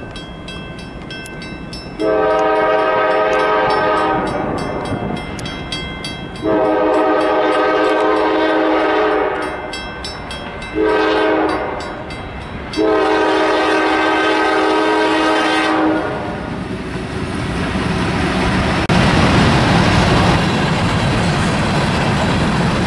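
Freight locomotive air horn sounding the grade-crossing signal, long, long, short, long, over the ringing bell of the crossing signals. After the last blast the train rolls through, and the noise of wheels and rail cars swells toward the end.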